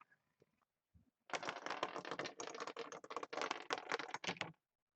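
A dense run of hard clicks and rattles, starting about a second in and lasting about three seconds before stopping abruptly. It is the sound of a small hard game piece, dropped to pick a team, clattering across a board before it settles.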